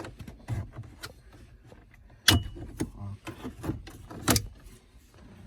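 Clicks, knocks and light rattles of hard plastic dash trim and the radio unit being handled and pulled, with two sharper knocks, about two seconds in and about four seconds in.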